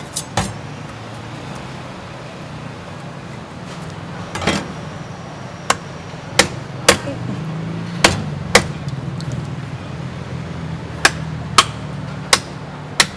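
Meat cleaver chopping through a pork carcass: about a dozen sharp chops, often in pairs about half a second apart, with a pause between groups. A steady low hum runs underneath.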